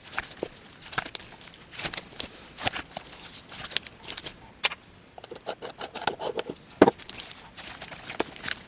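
Elmer's glue slime being mixed and worked, giving irregular sticky clicks, pops and squelches as the slime pulls and folds.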